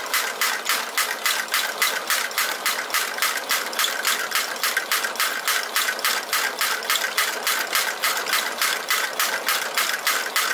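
Wilesco toy drop hammer, belt-driven by a Stirling engine, striking its anvil in a fast, even rhythm of about four knocks a second, over a steady gas-burner roar.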